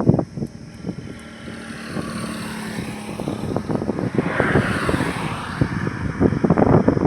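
A road vehicle passing by on a highway: its tyre and engine noise swells to a peak about four to five seconds in, then fades. Wind buffets the microphone near the start and end.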